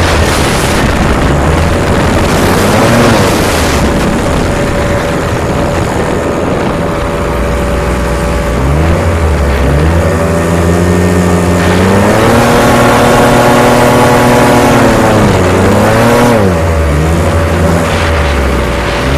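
Racing hovercraft's engine and thrust fan running hard, the pitch climbing as the throttle opens, holding high for a few seconds, then dropping and rising again several times as the throttle comes off and goes back on. A steady high tone runs underneath.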